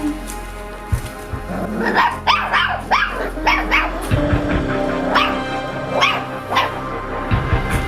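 Puppies yelping and yapping over and over in short, high, rising yelps, over steady background music.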